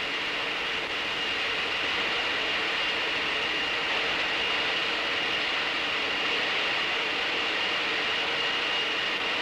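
Wind tunnel running at high speed: a steady rushing noise with a high, thin whine over it, building slightly in the first two seconds and then holding steady.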